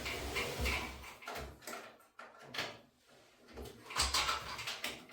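Irregular rustling and short knocks from hands working a wire harness and its plastic connectors inside a washer, with a busier cluster of handling noise about four seconds in.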